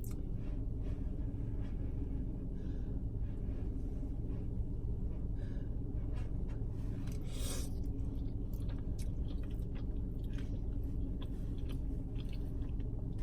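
Close-up chewing and mouth sounds of a person eating creamy fettuccine alfredo, with small wet clicks, over a steady low hum. A brief louder noise comes about seven and a half seconds in.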